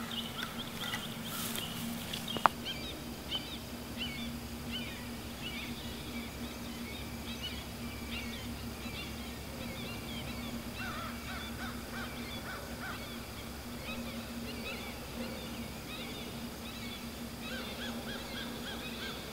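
Many short bird calls throughout, over a steady low hum, with one sharp tick about two and a half seconds in.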